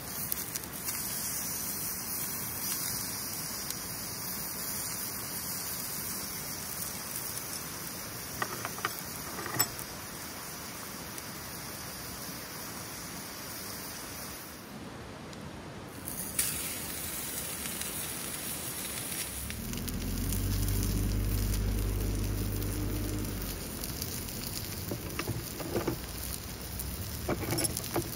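Meat sizzling in a cast-iron skillet over a small wood fire: a steady frying hiss with scattered crackles and pops from the burning sticks. About twenty seconds in, a low hum swells and fades over about four seconds.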